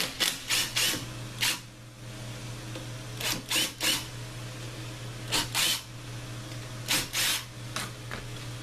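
Cordless drill-driver run in short trigger blips, a dozen or so brief whirs in clusters of two to four, spinning out bolts on an ATV engine's side case.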